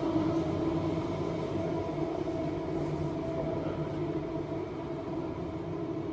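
Steady mechanical hum and rumble with several held tones, unchanging throughout.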